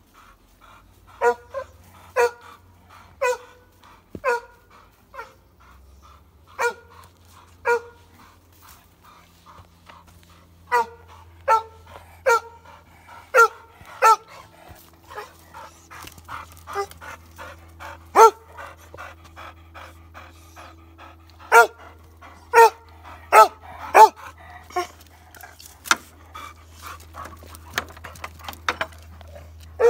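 Dog barking sharply and repeatedly, roughly one bark a second in runs, with a short break about eight seconds in; the barks come closer together and louder in the second half.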